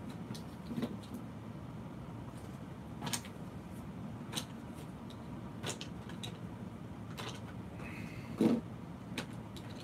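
Cardboard shotgun shell boxes and loose plastic shotshells being handled and set down in a cardboard tray: a handful of separate soft knocks and clicks a second or so apart, the loudest near the end, over a steady low room hum.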